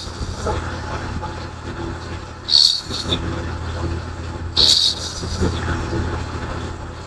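A sleeping person snoring, with a short, sharp burst of breath about every two seconds over a steady low hum. The recording is presented as sleep apnea snoring.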